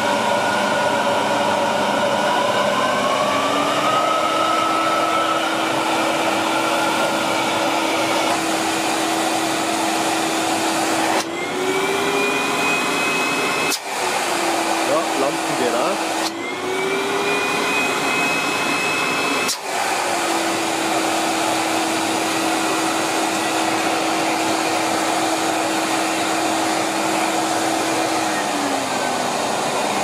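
Miele S224 Electronic canister vacuum cleaner from 1980 running on a test after reassembly, and working. It gives a steady motor tone whose pitch climbs a few seconds in, then twice rises higher for a few seconds and drops back abruptly, and sinks again near the end.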